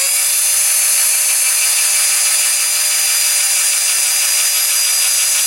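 Small electric drill running steadily with a thin bit, drilling out a rivet in a die-cast toy car's base, a constant whine over a hiss of cutting.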